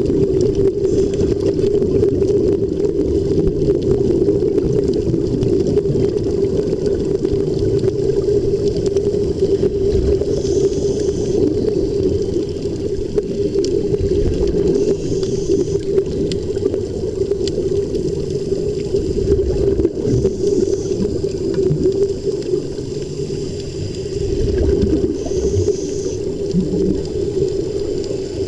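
Steady bubbling, gurgling rush of air and water around a helmet diver underwater, over a constant low drone, with a brief hiss about every five seconds.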